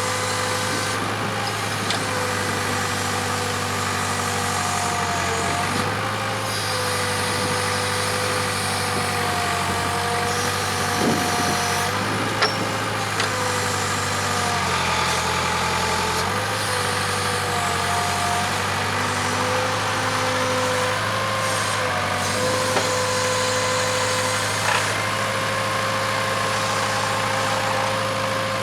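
Case 580K backhoe's diesel engine running steadily while the hoe works, with a hydraulic whine whose pitch steps up and down as the controls are moved. An occasional sharp knock cuts through, about midway.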